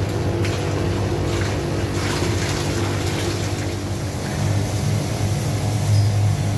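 Steady engine drone of a drain-jetting unit running, with water rushing through the hose and drain.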